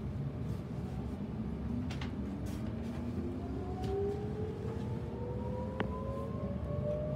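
Sydney Trains Millennium electric train accelerating away from a station: its traction motors whine in several tones that rise slowly and steadily in pitch, over a low rumble heard from inside the carriage. A single short click about six seconds in.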